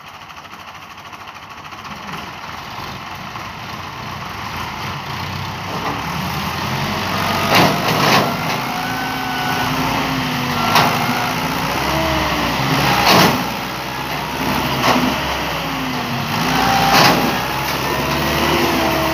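Massey Ferguson 265 tractor's three-cylinder diesel engine revving under heavy load, straining to pull a loaded trolley. It grows louder over the first few seconds, its pitch rises and falls, and several sharp knocks come through along the way.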